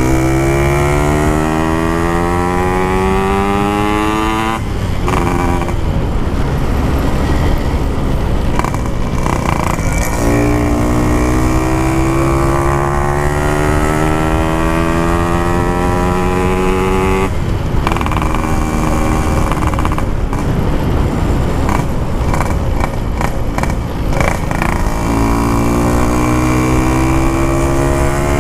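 Yamaha RX-King's two-stroke single-cylinder engine through an aftermarket exhaust, ridden under throttle: the engine note climbs steadily in several long pulls, dropping off between them as the rider shifts or eases off.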